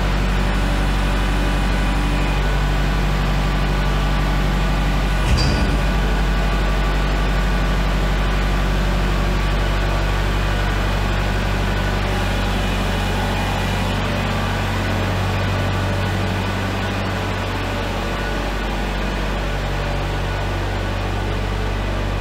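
Kubota L4701 compact tractor's four-cylinder diesel engine running steadily while it handles a pallet on its forks, with a single clank about five seconds in as the load is set down or the forks knock. The engine gets a little fainter near the end as the tractor backs away.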